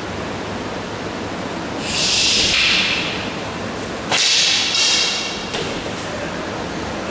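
Steady hiss from a recorder, with bursts of rustling and scuffing from two people grappling over a stick, and a single sharp knock about four seconds in as the stick arm is caught.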